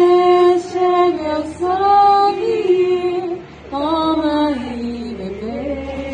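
A woman singing a slow hymn, holding long notes that glide gently from one pitch to the next.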